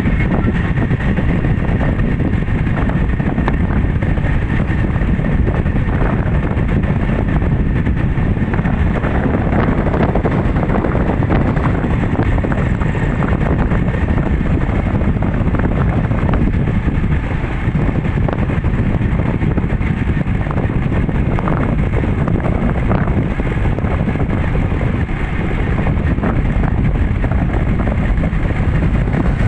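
Steady wind buffeting the microphone over the running engine and tyre noise of a moving vehicle.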